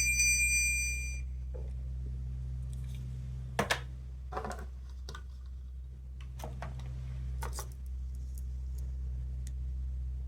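An electronic sound-toy melody of beeping tones stops about a second in, followed by a few scattered small clicks and taps over a steady low hum.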